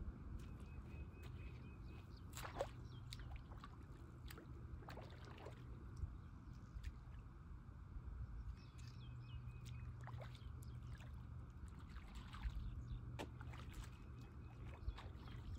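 A low, steady rumble of wind on the microphone, with scattered faint splashes and clicks as a person wades and reaches into shallow creek water.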